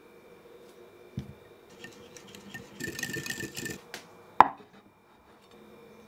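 Kitchen handling noises from tableware: a soft thump, then a couple of seconds of scraping and rustling, then one sharp ringing clink of ceramic, like a plate or ramekin being set down.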